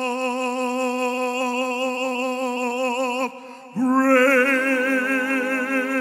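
Live worship music: a long held note with steady vibrato breaks off for about half a second a little past halfway, then a new note comes in; a low bass note joins near the end.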